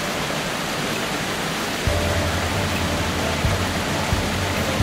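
Torrent of muddy floodwater rushing through a street, a steady noise of moving water; a deeper rumble joins about two seconds in.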